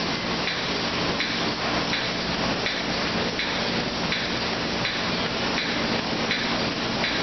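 Steady workshop machinery noise, with a faint regular knocking about one and a half times a second and a low hum underneath.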